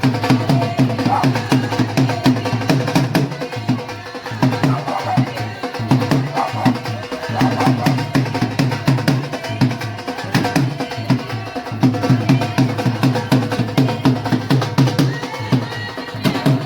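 Music driven by steady, fast drumming, with drum hits repeating about three times a second.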